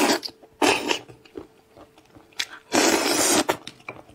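Close-miked eating of spiced sheep's ear: loud, noisy slurping as the meat is drawn into the mouth, briefly at the start and under a second in, then a longer slurp about three seconds in, with faint chewing clicks between.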